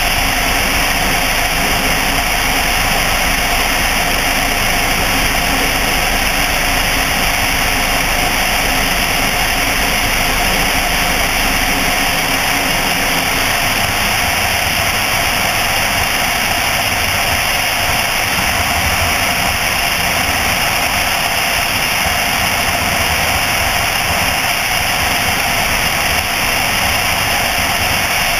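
Light aircraft's piston engine and propeller droning steadily with heavy airflow rush, at reduced power on a long final approach. The low rumble eases slightly about twelve seconds in.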